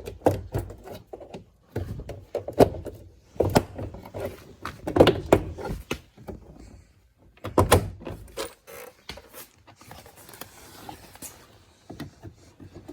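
An Audi A5's door card being pried off the door with a plastic trim removal tool: irregular clicks and knocks of the panel and tool in several clusters, with quieter scraping near the end.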